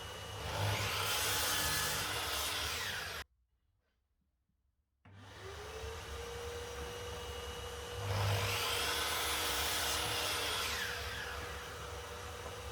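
Woodworking power tool cutting timber, with two louder passes of about two and a half seconds each, the second about eight seconds in. A brief dead silence about three seconds in; after it the motor's tone rises as it spins up, then runs steadily.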